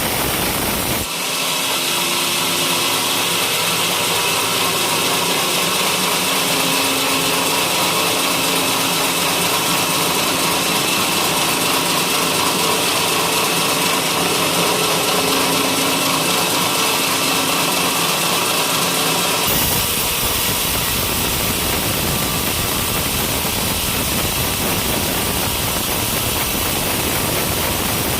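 Sawmill running loudly while sawing a coconut-palm log into timber. About a second in the sound changes sharply to a steadier whine with a bright high edge, then switches back to fuller machine noise around twenty seconds in.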